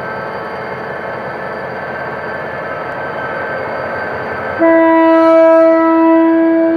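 General Motors GT22CW-2 diesel-electric locomotive running as it pulls a passenger train away from the station, then its air horn sounds one long, loud blast from about four and a half seconds in.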